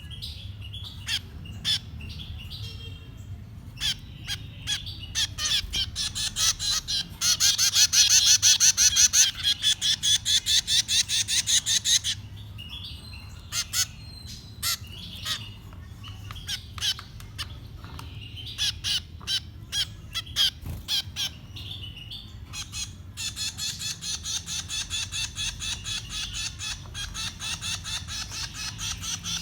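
Nestling birds begging for food: high-pitched chirps repeated fast and evenly, about five a second, in two long loud runs, one about a quarter of the way in and one over the last few seconds, with scattered single chirps between.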